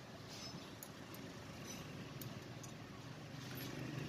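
Faint, scattered light metallic clicks as clutch friction discs and steel clutch plates are stacked by hand, alternating, into a clutch pack. Under them runs a low engine hum that grows a little louder near the end.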